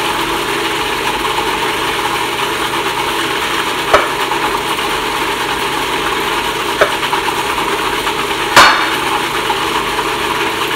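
A kitchen knife knocks sharply three times on the plate and fish while slitting a whole red snapper; the last knock is the loudest. A steady machine-like hum runs underneath.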